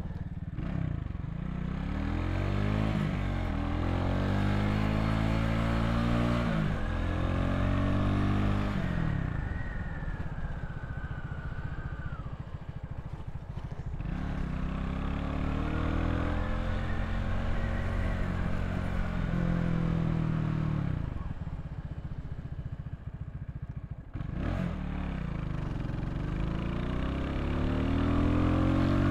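Vitacci XMT 250 motorcycle engine accelerating through the gears, its pitch climbing in each gear and dropping back at each shift. It eases off twice to slow down before pulling away again.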